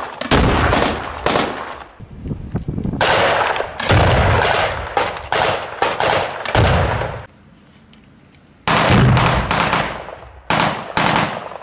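Rapid rifle gunfire in several long bursts of closely spaced shots. There is a pause of about a second and a half roughly two-thirds of the way through, then two shorter bursts.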